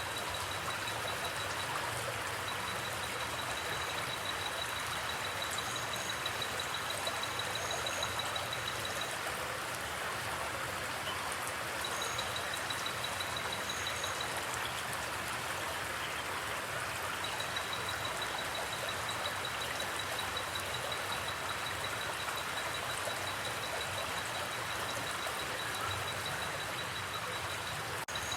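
River or forest creek water flowing, a steady, even rushing. A high, fast-pulsing trill comes and goes over it several times.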